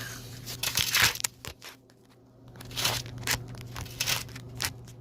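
Clicks and short scrapes of metal parts being handled as a bolt is put in place, over a steady low hum.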